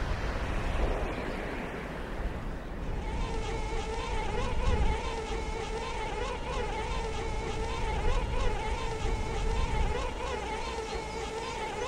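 Low wind rumble on the microphone. About three seconds in, a steady buzzing hum with a gently wavering pitch joins it and keeps on.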